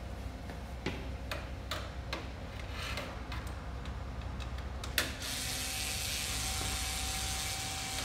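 Screwdriver work on the paper exit assembly screws of a Fuji Xerox copier: a run of light clicks and ticks, then a sharper click about five seconds in. After it comes a steady high hiss with a faint tone for the last three seconds.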